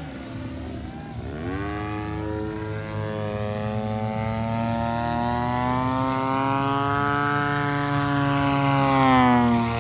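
Radio-controlled aerobatic airplane's propeller and motor working the throttle through a hover. The pitch drops about a second in, climbs back up and holds, then eases off near the end.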